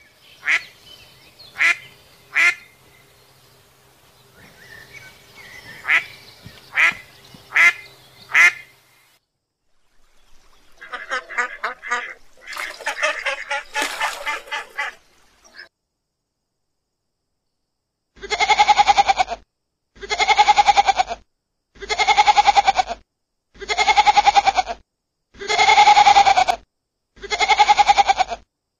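A mallard duck quacking in single sharp calls, then a run of goose honks from greylag geese. After a short gap, goat kids bleat in a string of evenly spaced bleats, about one every second and a half.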